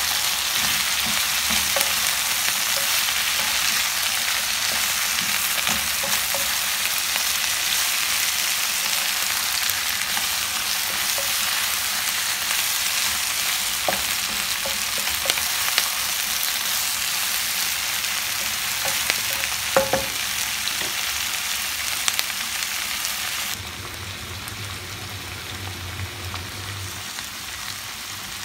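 Mixed vegetables sizzling as they stir-fry in a pan, with a wooden spatula now and then clicking against the pan. Near the end the sizzle drops to a quieter level.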